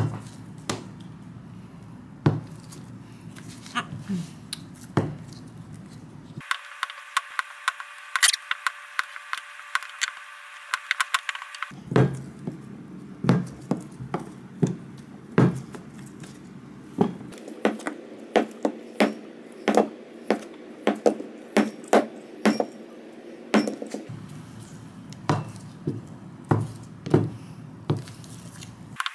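A knife slicing through blocks of cold butter and knocking down onto a plastic cutting board: a long run of sharp, irregular knocks, about one or two a second.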